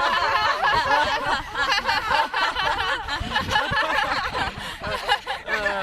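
Several people laughing and giggling together, their voices overlapping.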